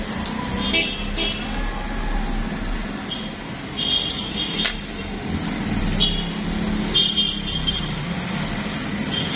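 Steady background rumble of road traffic, with a few short clicks scattered through it.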